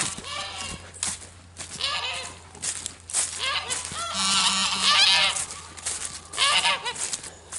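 A flock of white domestic geese honking in repeated bouts of overlapping calls, loudest about halfway through.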